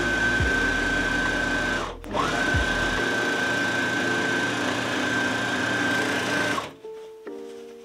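Juki MO-2500 overlocker stitching patchwork fabric at speed, a steady motor run with a high whine. It stops briefly about two seconds in, starts again, and stops near the end.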